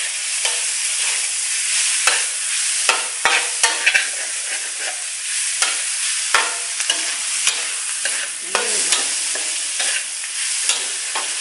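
Sliced pork belly sizzling in hot oil in a metal wok, stirred continuously with a metal spatula that scrapes and clicks against the pan over a steady frying hiss.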